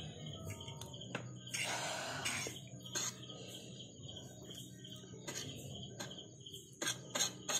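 Close-miked eating sounds from noodles: sharp clicks and smacks of chewing, with a short noisy slurp about two seconds in and a run of louder smacks near the end. A steady high chirping runs underneath.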